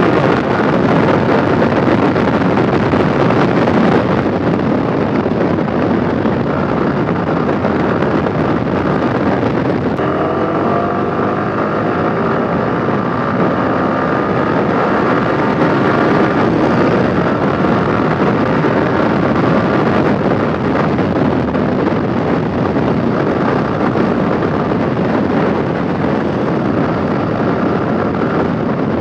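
Yamaha R15 V4 single-cylinder engine running at speed under heavy wind rush on the microphone. The engine note changes around ten seconds in as the bike slows from over 100 km/h.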